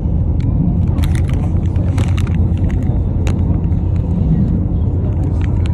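Tyne and Wear Metro train running along the track, heard from inside the car: a steady low rumble with irregular sharp clicks and knocks.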